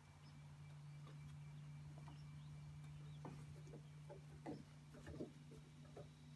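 Faint, light pattering of a puppy's paws and claws on a wooden deck: a handful of soft taps, mostly in the second half, over a steady low hum.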